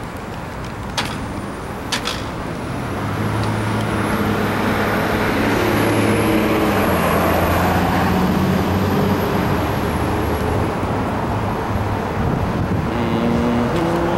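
Street traffic noise with a motor vehicle's engine running close by, its low hum growing louder from about three seconds in and holding steady. Two light clicks about one and two seconds in.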